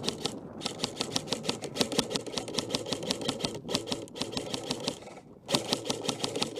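Airsoft electric guns (AEGs) firing full-auto in long rapid strings of clicks, with short pauses about half a second, three and a half and five seconds in.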